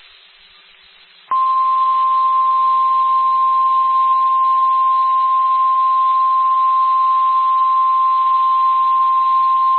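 Emergency alert warning tone announcing a tornado warning: a single steady tone of about 1050 Hz, the NOAA Weather Radio warning alarm, starting about a second in over faint radio hiss.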